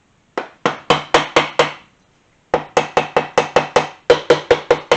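Kawasaki KZ400 engine case being tapped to loosen it from the engine. There is a quick run of about six sharp taps, a short pause, then two more runs of about seven taps each, about five a second.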